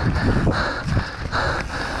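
Mountain bike descending an enduro stage at speed: wind buffeting the microphone over the rattle and rumble of tyres and frame on rough ground. The hiss swells and fades in uneven pulses.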